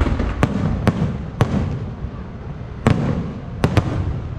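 Aerial firework shells bursting overhead: six sharp bangs spread over a few seconds, the last two in quick succession, over a steady low rumble.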